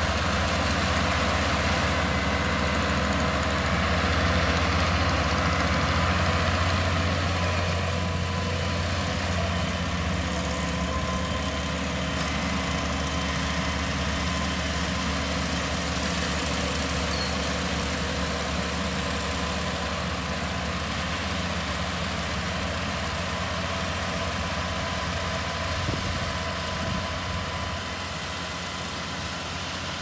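Kubota WR572 head-feed combine harvester cutting rice: its diesel engine runs steadily under load, a low drone with clattering machinery noise over it, easing slightly near the end.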